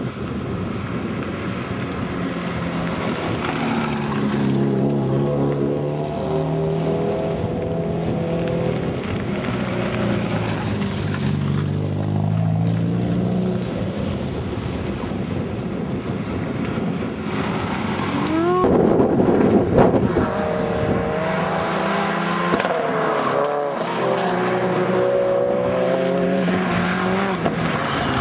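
Subaru Impreza race cars with flat-four engines lapping a circuit: engines revving up and down through gear changes as the cars pass and round the bends. About two-thirds through, one engine revs sharply upward and a car passes close, the loudest moment.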